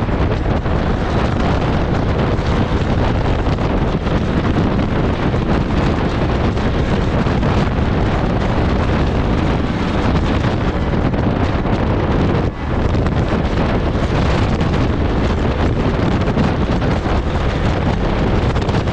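Loud, steady wind rushing over the microphone of a camera mounted outside a tractor-trailer travelling at highway speed, with low road and vehicle noise beneath it.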